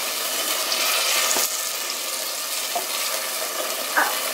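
Tomato masala sizzling in a clay handi while a wooden spatula stirs fried kebabs through it, with a few light knocks of the spatula against the pot.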